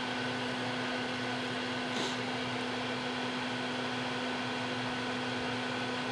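Steady fan-like hum and hiss of workshop background noise, with one faint click about two seconds in.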